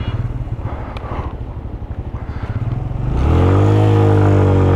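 Suzuki GS150SE's single-cylinder four-stroke engine running under way at low revs, pulsing evenly. About three seconds in the throttle opens and the engine note climbs, then holds louder and higher.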